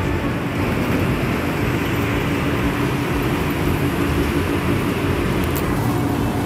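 Steady din of a station concourse and tram stop: a continuous hum under an even wash of noise, with a streetcar standing at the platform.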